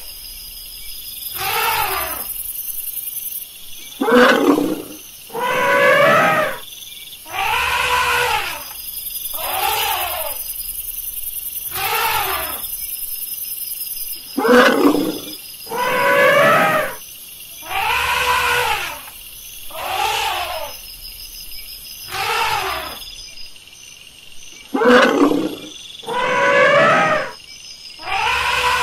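Elephant calls: a long series of hoarse, roaring calls, each about a second long, coming roughly one every two seconds.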